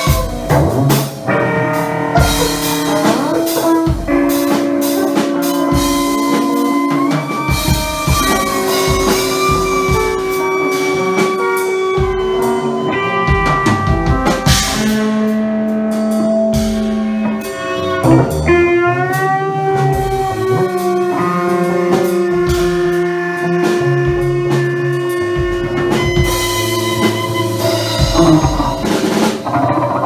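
Live improvised experimental music from a quartet of cello, percussion, guitar and electronics: long held tones that change pitch in steps, a wavering slide a little past the middle, and scattered drum and percussion hits.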